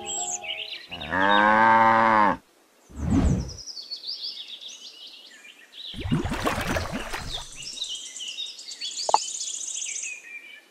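A cow moos once, a long low call about a second in, followed by a shorter low sound; birds chirp and tweet through the rest. About six seconds in comes a short stretch of sloshing water as a small plastic trough is dipped into a shallow pond.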